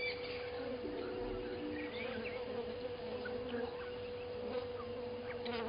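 Outdoor evening bush ambience: a steady, even drone with scattered short chirps over it.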